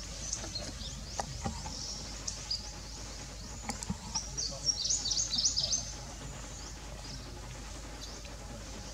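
Birds chirping in the surrounding forest: many short, quick, high chirps, with a busier burst about five seconds in.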